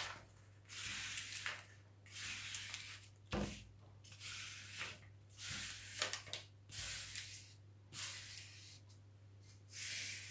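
Repeated sweeping rubs of a hand over the plastic protective film of a diamond-painting canvas, about one stroke a second, pressing trapped air out from under it. One soft thump about three seconds in, over a steady low hum.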